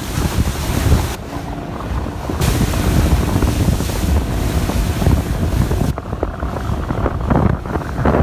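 Heavy wind buffeting the microphone, with rushing and splashing water from jet skis running at speed over choppy waves. A faint engine drone runs underneath.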